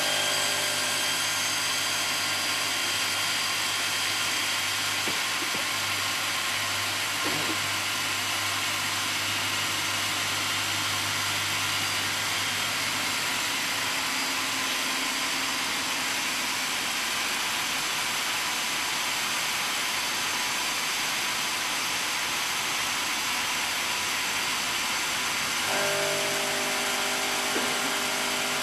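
HLSQ-450 automatic bridge saw's water-cooled diamond blade cutting through a granite slab: a steady grinding hiss over an even motor hum. About 26 s in the hum changes to a different set of tones.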